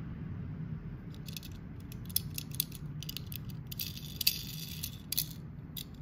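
Small clicks and light rattles of a Tomica Premium die-cast Ferrari 365 GTS4 model car being turned over in the fingers, a scatter of them from about a second in and thickest a little past the middle, over a faint steady low hum.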